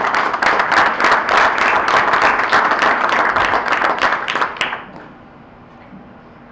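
An audience applauding, with many hands clapping together; the applause dies away about five seconds in, leaving low room noise.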